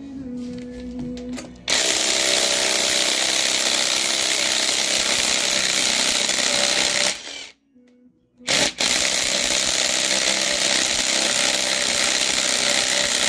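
A power tool running steadily for about five seconds, stopping briefly, then running again, loud and even.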